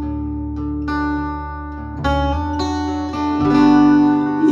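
Acoustic guitar playing held, strummed chords over a low bass line in a live song's instrumental break, the chord changing about two seconds in and again near three and a half seconds.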